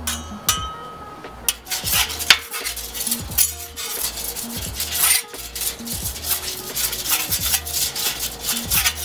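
Stainless steel spatulas scraping and clacking on the steel cooking surface of a Blackstone flat-top griddle, in quick repeated strokes that start about a second and a half in.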